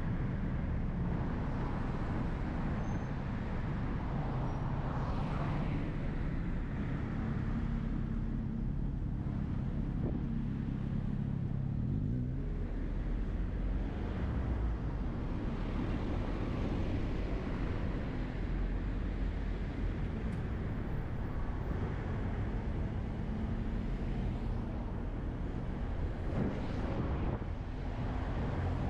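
Busy city street traffic: a steady low rumble with cars passing, and a vehicle engine humming close by for several seconds in the first half.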